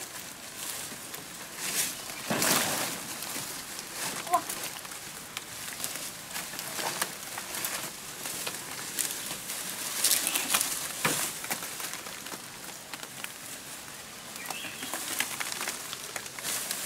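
Leaves, fern fronds and undergrowth rustling and crackling in irregular bursts as someone pushes through and grips the vegetation while climbing. The loudest surges come about two seconds in and about ten seconds in.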